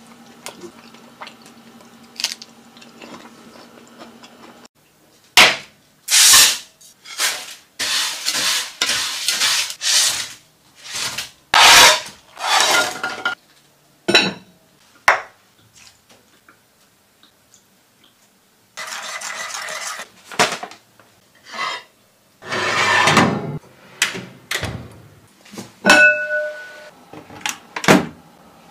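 A run of cooking sounds from several short clips: metal pots, lids and utensils clanking and scraping, with short noisy bursts between silent gaps. A low steady hum at first cuts off suddenly.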